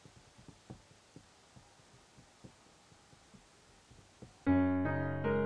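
Faint, even clicks about twice a second, then electric piano music comes in suddenly about four and a half seconds in, playing sustained chords.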